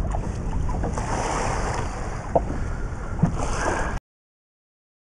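Wind buffeting the microphone and sea water washing against the side of a small boat, with a couple of sharp knocks in the second half; the sound cuts off to silence about four seconds in.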